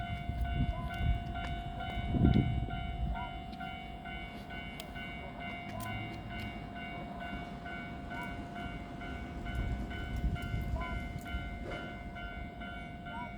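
Electric train at a station platform: a low rumble that swells twice, under a steady high tone and a rapid, evenly repeating beeping.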